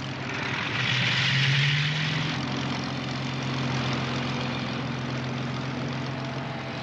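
Propeller aircraft engine running at high power: a steady drone under a rushing hiss that swells loudest about a second and a half in, then holds steady.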